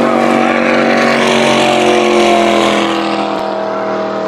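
Water-ski racing boat's engine running flat out as the boat speeds past, a loud, steady note whose pitch sags slightly and fades a little about three seconds in.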